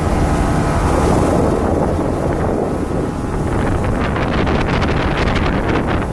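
Wind buffeting the microphone on a rigid inflatable speedboat running fast, with its engine and rushing water underneath. From about halfway, quick crackling hits join in as the hull slaps the water and spray flies.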